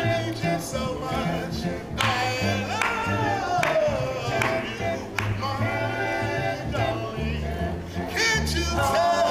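Male vocal group singing in close harmony, with an upright double bass plucking a line of low notes underneath.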